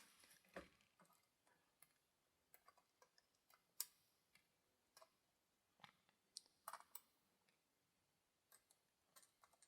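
Faint, scattered small metallic clicks, about a dozen at uneven intervals with a sharper one about four seconds in, from spool pins and pinning tweezers being handled while a deadbolt lock cylinder is repinned.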